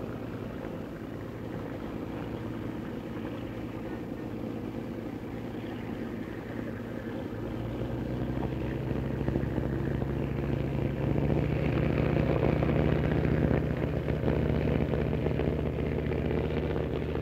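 A motorboat engine runs steadily with a low, even hum. It grows louder and deeper about halfway through, as if the boat is drawing nearer or speeding up.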